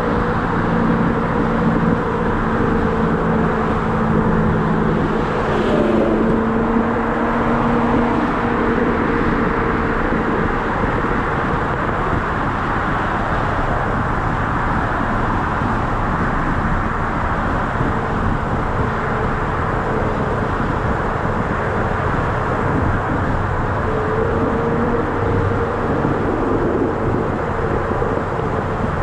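Chevrolet Nova driving at steady cruising speed: its engine running under a constant rush of wind and tyre noise, heard from on top of the hood.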